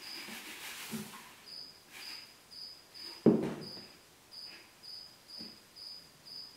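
A cricket chirping steadily, short high chirps about twice a second. A hiss of something pouring runs through the first second or so. About three seconds in there is a single knock as a plastic bucket is set down on a table.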